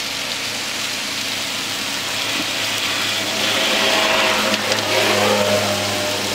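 Chicken masala sizzling in a large iron kadai as a long iron ladle stirs it. The sizzle swells in the middle, with a couple of ladle knocks against the pan, over a steady low hum.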